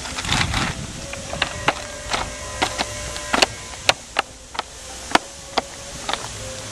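Footsteps on EventDeck Ultra interlocking plastic floor panels, each step a sharp clack, about two a second. Near the start there is a scraping rustle as a panel is set into place.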